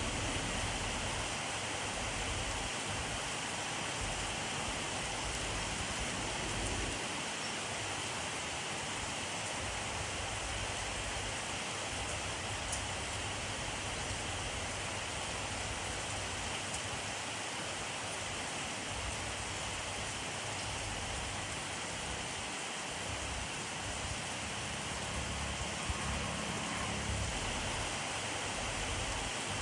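Steady rainfall, an even hiss of rain with a few distinct drops landing now and then.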